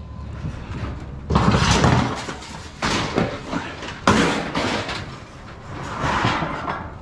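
Scrap metal being unloaded and dropped: three loud clanking hits about a second and a half apart, each ringing briefly, then a rattling clatter near the end.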